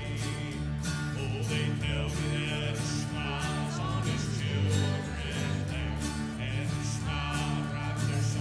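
Church guitar group playing gospel music: strummed acoustic chords over sustained low notes.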